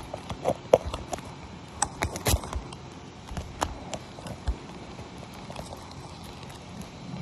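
Irregular clicks and light knocks of hard 3D-printed plastic slides being handled.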